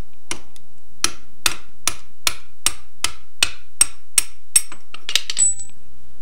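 Hammer striking a brass drift to drive the bell crank pivot shaft up out of a Willys MB front axle casting: steady sharp metallic strikes, about two and a half a second. About five seconds in they give way to a short metal clatter with a brief high ringing note as the shaft comes free.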